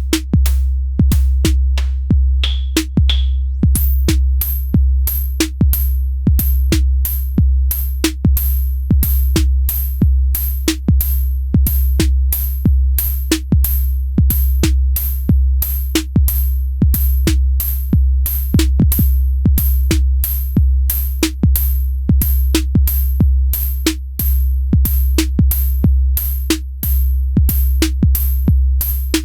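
Elektron Syntakt drum machine playing an electronic beat: a deep kick with a long low tail under regular sharp hits. A fast run of high hi-hat ticks joins about four seconds in.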